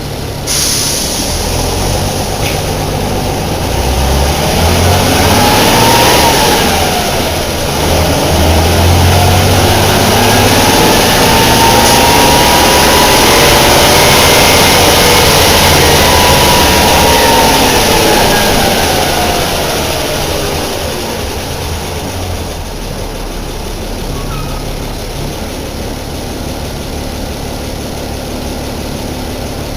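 Deutz BF6L 913 C air-cooled turbo diesel of a bus revving up under way, with a sudden drop in revs about six seconds in as a gear is changed. The revs then climb again, hold, fall away, and the engine settles to a steady idle for the last several seconds.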